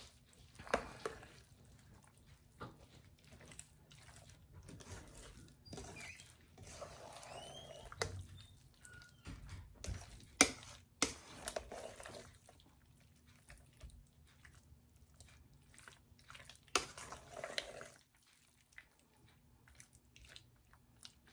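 A large spoon stirring sticky chunks of faikakai dumpling through thick lolo (coconut caramel sauce) in a stainless steel bowl: soft wet squelching, with scattered sharp clicks of the spoon against the bowl.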